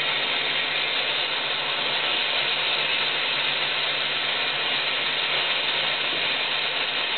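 Steady hiss of steam venting from an overheating water heater's hot-water plumbing, with a faint low hum underneath. The water is running far above normal temperature, near 200 degrees.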